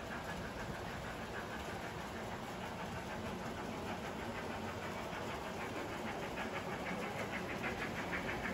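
Model steam locomotive running with a goods train on a model railway layout: a steady running noise, with a regular rhythmic beat of about four or five a second that comes in about halfway through and grows louder as the train approaches.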